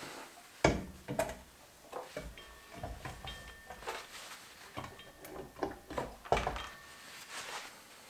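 Clunks and knocks of metal as an engine is lowered onto its gearbox and engine mount, with two heavier thuds, one about half a second in and one about six seconds in, and lighter rattles between.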